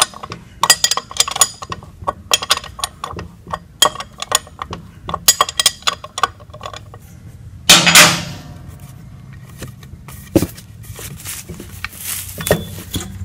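Irregular metal clicks and clinks of a wrench turning the bolts of a driveshaft's front flange at the transmission, with one louder ringing metallic clang about eight seconds in.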